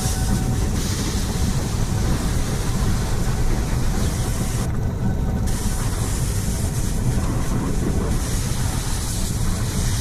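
Pressure washer spraying: a steady hiss of high-pressure water over a low rumble. The spray cuts out briefly about halfway through while the rumble carries on.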